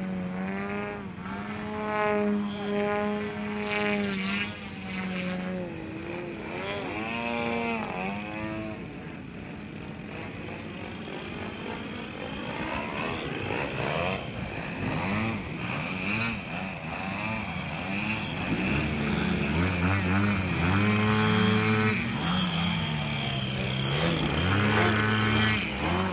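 ZDZ 180 twin-cylinder two-stroke gas engine with Pro-RC canister mufflers, powering a large-scale RC aerobatic plane in flight. The engine note rises and falls in pitch with throttle changes and passes, and grows louder in the second half as the plane flies close.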